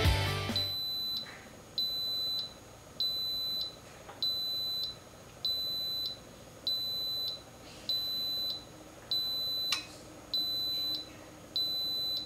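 Instant Pot Ultra electric pressure cooker beeping to signal that its pressure-cooking time has run out: about ten evenly spaced high beeps, a little over one a second. A single sharp click sounds about ten seconds in.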